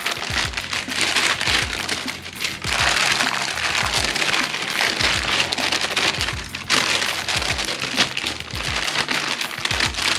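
Baking paper crinkling and rustling as sticky dough is pressed and shaped on it, over background music with a bass line.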